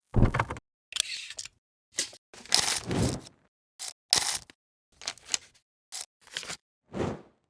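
A string of short mechanical clicks and rattling whirs in separate bursts, about ten of them, with dead silence between: vintage film-camera or projector sound effects.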